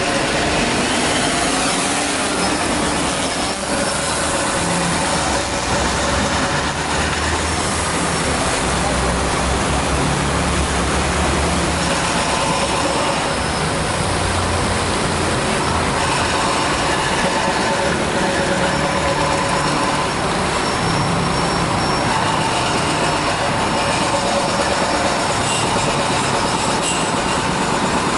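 DJI Phantom quadcopter's propellers and motors spinning up to lift off and then whirring steadily as it flies overhead, faint tones in the whir shifting as the motors change speed.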